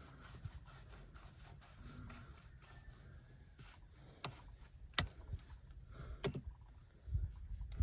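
A few sharp clicks or knocks over a low rumble, the loudest about five seconds in, with a low thump near the end.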